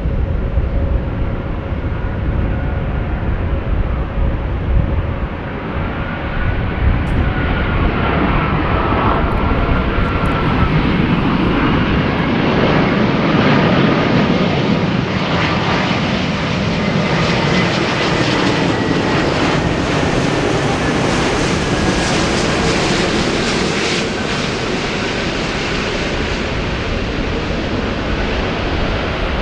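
Jet aircraft engines passing close by, the noise swelling to its loudest about midway and easing off near the end, with whines gliding in pitch as it goes past.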